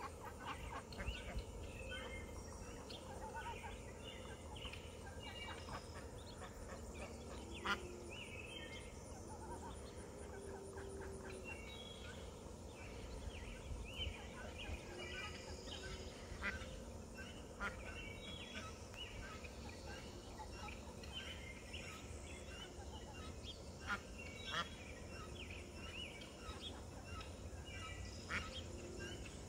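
A brood of ducklings peeping continually in short high chirps, with a few low calls from the adult birds over a steady low rumble.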